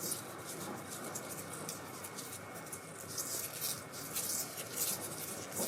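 Soft, irregular rustling and scratching of cats moving about on soft bedding, busier from about three seconds in.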